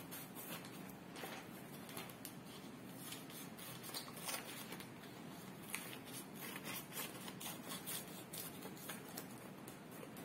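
Scissors cutting slowly around glued-together sheets of red paper: a run of faint, irregular snips.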